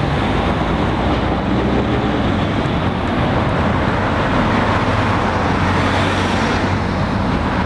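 Steady road traffic of cars, vans and an articulated lorry pulling an empty skeletal container trailer, its diesel engine a low hum under the tyre noise. A van passing close brightens the sound about six seconds in.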